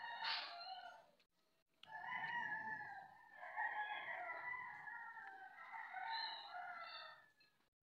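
A rooster crowing: a short call at the start, then, after a brief gap, one long drawn-out crow lasting about five seconds.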